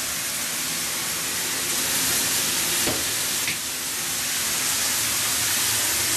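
Water spraying steadily from a large rainfall shower head, a constant even hiss. A single faint click about three seconds in.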